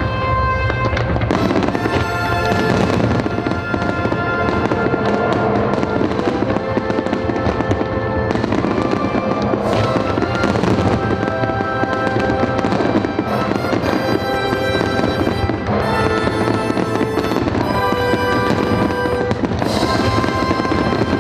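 Fireworks crackling and popping densely, over classical orchestral music with long held notes.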